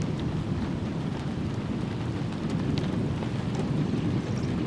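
Storm wind blowing over the microphone: a steady low rumble, with a few faint ticks.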